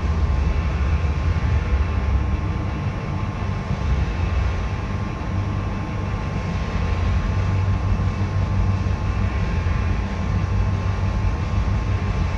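Paint spray booth's ventilation fans running: a steady low rumble with rushing airflow noise, heard through the booth's glass door.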